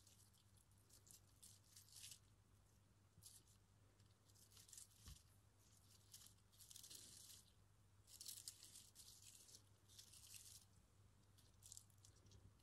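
Faint, crisp rustling in short bursts every second or so as fresh hop vines with papery cones and leaves are handled and laid onto a gel printing plate, over a faint low hum.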